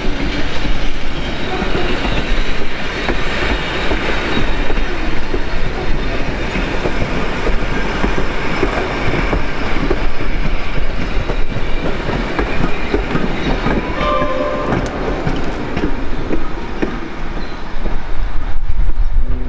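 Heritage passenger carriages rolling past on jointed track, with a steady rumble and wheels clicking over the rail joints. A brief horn-like tone sounds about fourteen seconds in.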